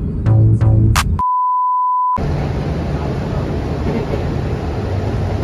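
Background music with a beat cuts off about a second in and gives way to a steady, pure electronic beep lasting about a second. Steady low rumbling background noise follows.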